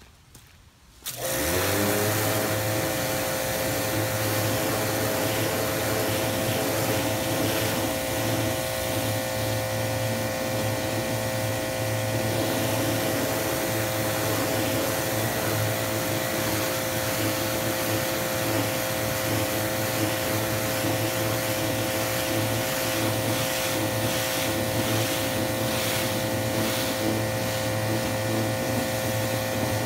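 Electric pressure washer rated 2000 PSI starting up about a second in as the spray gun's trigger is squeezed: the motor spins up with a short rising whine, then runs with a steady hum under the hiss of the water jet striking the wooden fence.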